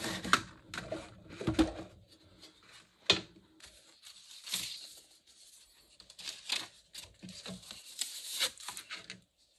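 A metal pencil tin being handled: a few sharp knocks and taps in the first three seconds, then a papery rustle and sliding as the card insert is lifted off the rows of watercolour pencils.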